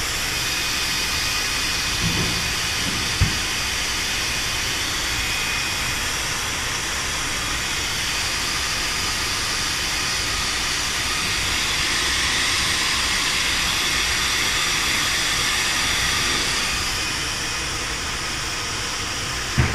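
An edge sealing machine for PP bubble guard sheet running with a steady hiss as a sheet feeds through its rollers. A sharp click comes about three seconds in, and another near the end.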